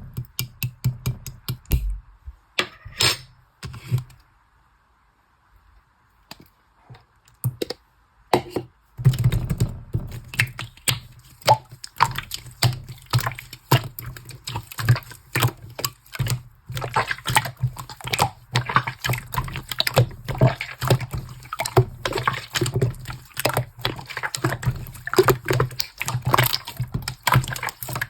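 Pink slime squished and pressed by hand, giving a stream of wet clicks, crackles and squelching pops. The sounds stop for a few seconds near the start, then come thick and fast from about nine seconds in.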